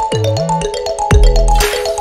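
Background electronic music: a fast, bright mallet-like melody over deep bass notes that slide down in pitch, two of them, with a brief cymbal-like hiss near the end.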